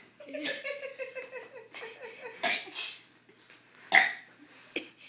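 A girl's long drawn-out burp, carried at a low pitch that sags slightly over about three seconds with small breaks, as when burping the letters of the alphabet. A short sharp sound follows about four seconds in.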